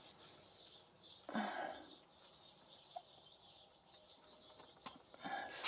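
Faint handling noise of a small bearing being pushed by hand into a drilled hole in a log: a short scrape about a second in and a few light clicks near the end.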